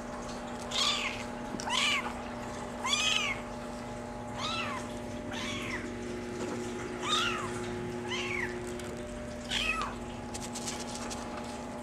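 Maine Coon kitten mewing repeatedly: about eight short, high-pitched mews, each rising and then falling in pitch, roughly a second apart, over a faint steady hum.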